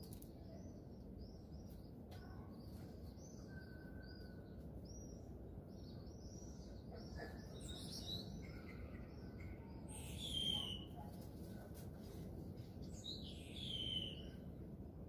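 Small birds chirping in quick repeated notes, with two louder, longer calls that slide downward, about ten and fourteen seconds in, over a steady low background noise.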